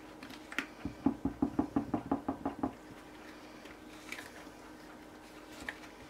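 Spatula knocking against the sides of a jug while stirring soap batter by hand: a quick run of about a dozen knocks beginning about a second in and lasting under two seconds, with a few scattered lighter clicks later.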